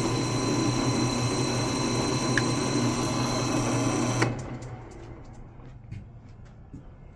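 Bauer 17-inch drill press running with a steady hum and a high whine. The sound cuts off suddenly about four seconds in, leaving only a few faint ticks.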